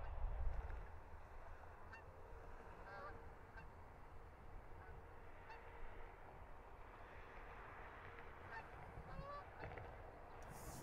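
Faint geese honking now and then, a few short calls at a time, over a low steady rumble.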